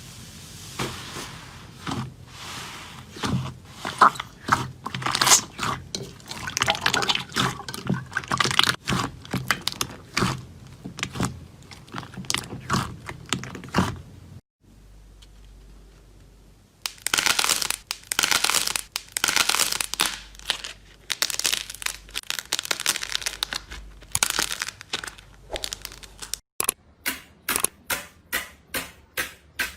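Hands squeezing and pressing slime, making dense runs of short sticky clicks and crackles. Near the end the clicks come in a quick even series, about three a second.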